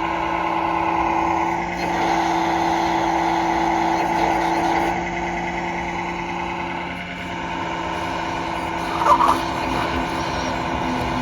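Simulated diesel engine sound from a model excavator's onboard ESP32 sound module and speaker, running steadily and getting louder from about two to five seconds in. There is a short squeak about nine seconds in.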